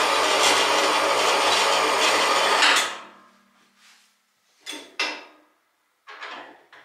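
HBM 128 metal band saw cutting metal, a steady loud rasp over the motor's hum; nearly three seconds in the motor cuts off and its hum fades away. A few short metal clacks follow as the saw arm is lifted.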